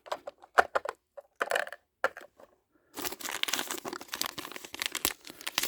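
A few light clicks from small plastic toy pieces being handled, then, from about three seconds in, dense crinkling and tearing as a small plastic wrapper holding a miniature toy item is torn open.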